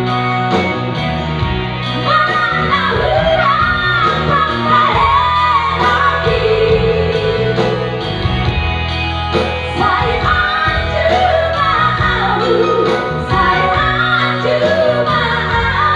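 High female singing with wide vibrato over a pop band accompaniment of bass and a steady drum beat.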